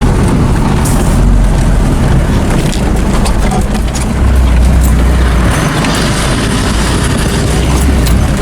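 Heavy diesel farm machinery at work in the maize harvest: a loud, steady low rumble with a broad hiss above it, which cuts off abruptly at the end.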